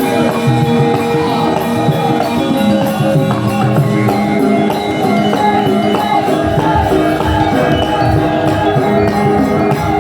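Javanese gamelan ensemble playing, with held ringing tones of bronze metallophones and repeated sharp metallic clacks. A low drum comes in about six and a half seconds in.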